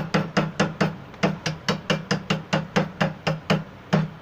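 A hammer pounding chocolate biscuits sealed in a plastic bag, crushing them to powder: quick repeated blows, about four to five a second, with short pauses about a second in and near the end.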